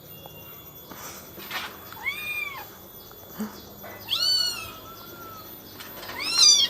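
Kittens meowing: three high, thin meows about two seconds apart, each rising and then falling in pitch, the last one the loudest.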